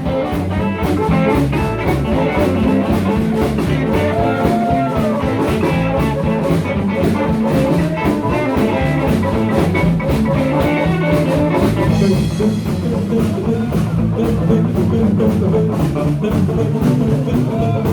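Live band playing a bluesy groove, with drums and bass under lead guitar licks that include bent notes.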